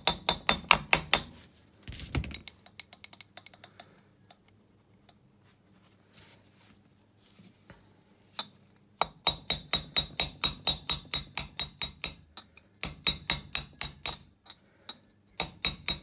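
Steel hammer tapping lightly on metal, driving a rocker-arm pin into the cylinder head of a 250 cc Bashan/Jianshe ATV engine. The taps come in quick runs of about six a second, with a near-quiet pause of several seconds in the middle.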